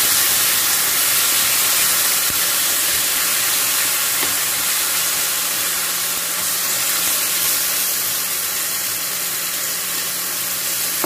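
Marinated pork slices and chopped onions frying in hot oil in a pan, a steady loud sizzle as they are turned with a wooden spatula. A faint low steady hum sits underneath.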